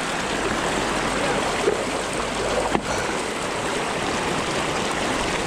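Shallow river water rushing and churning over stones close to the microphone, a steady loud hiss. A single short knock just under three seconds in.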